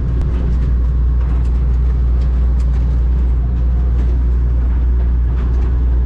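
Diesel engine of a digger (excavator) running steadily, a deep even hum with a few faint clicks over it.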